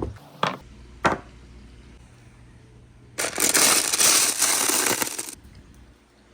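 Balls on a wooden marble run: three single sharp clacks in the first second, then about two seconds of dense clattering, as a crowd of marbles tumbles down the track together.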